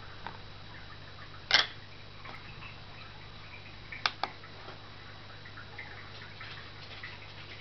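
Plastic sliding cover of a digital pocket scale handled and lifted off, one short loud clatter about a second and a half in, then two sharp clicks just after the midpoint as the scale's ON button is pressed and released.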